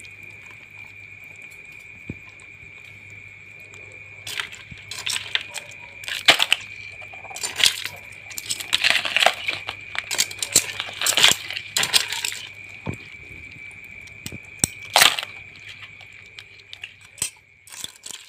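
Live crabs crowded in a plastic basin, clicking and scraping as their shells, legs and claws knock against each other and the plastic. The clicks come in irregular clusters, busiest in the middle stretch.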